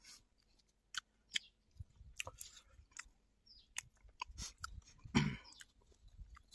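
A person chewing food close to the microphone: irregular mouth clicks and short bursts of chewing noise, the loudest about five seconds in.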